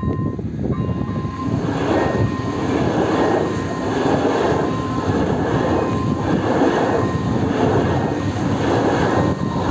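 A ČD Pendolino (class 680) electric tilting train passing at speed over a level crossing: a loud rush of wheel and rail noise that swells and eases as each car goes by, starting about a second and a half in and dropping away near the end. Throughout, the crossing's electronic warning bell rings a high two-note tone.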